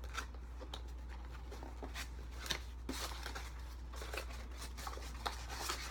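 A small cardboard box and its packaging being opened and handled: scattered light crinkles, rustles and taps, over a steady low hum.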